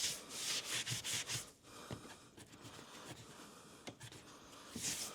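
Hand sanding of dried cornice cement on a paper-faced gypsum cornice: several quick rubbing strokes in the first second and a half, a quieter stretch, then more strokes near the end.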